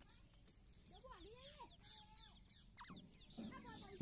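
Grey francolin giving faint soft calls: a few short notes that rise and fall in pitch, followed by quicker, steeper notes near the end.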